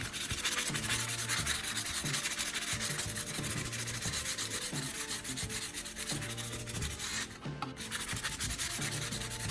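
Fine-grit sandpaper rubbing over a knife handle made of PVC pipe and hot glue: steady, dense scratching, with a brief pause a little over seven seconds in.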